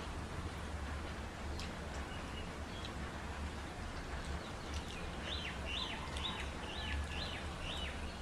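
A bird calling a quick run of about six short chirps, starting about five seconds in, over a steady low background hum and hiss.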